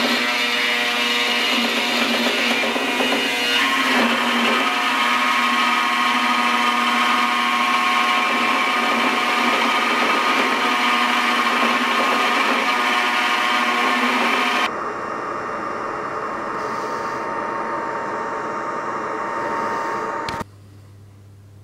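Belt grinder running with a metal sword pommel held against its narrow sanding belt over a small contact wheel: a loud, steady grinding with a whine. About 15 seconds in it drops abruptly to a quieter machine running, and about a second before the end it cuts to a faint low hum.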